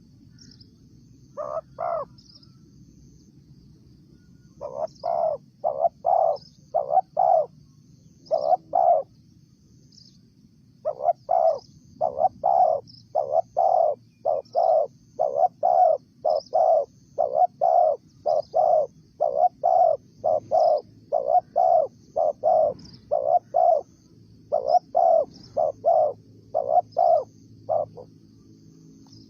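Spotted dove cooing: runs of short, low coo notes repeated one after another, starting about a second and a half in, with a short pause in the middle and stopping near the end. Faint high chirping runs underneath.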